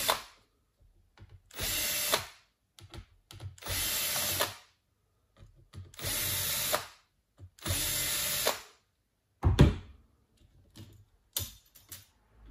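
Bosch cordless drill-driver backing out the screws that hold a laptop's heat sink, running in short bursts of about a second, four times, each ending with a sharp click. Near the end comes a loud knock followed by a few small clicks.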